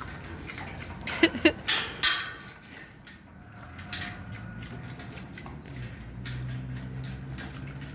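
Pig making short grunts while eating, with a few sharp crunching or rustling noises about a second or two in, then a low steady grunting rumble near the end.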